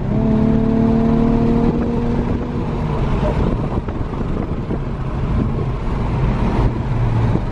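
Car engine and tyre noise heard from inside the cabin while driving fast. Right at the start the engine note jumps to a higher pitch and holds steady for a couple of seconds, then eases into a rough, steady rumble.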